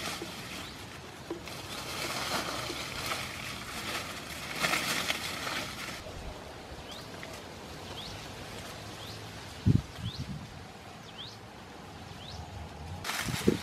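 Dry leaves and brush rustling and crackling as a person pushes through undergrowth, dying away about six seconds in and starting again near the end. In the quieter stretch, a bird gives short rising chirps about every half second, and there is a single low thump about ten seconds in.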